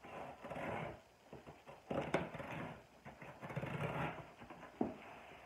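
Scissors slitting packing tape on a cardboard box: rough scratching strokes as the blade drags along the tape and cardboard, with a couple of sharp clicks about two seconds in and near the end.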